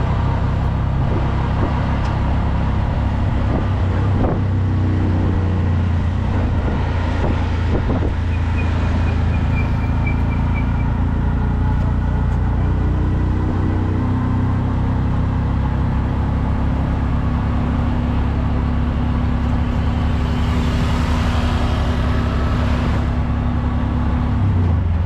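Vehicle engine running steadily with road noise, heard from on board while riding along a street. A brief high tone sounds about a third of the way in.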